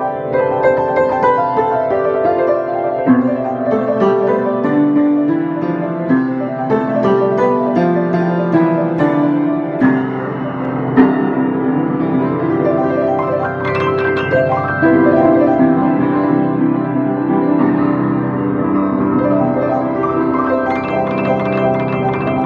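Solo piano improvisation: melody and chords played continuously, with notes ringing over one another, built around a motif spelled from the letters of a name mapped to notes starting at A.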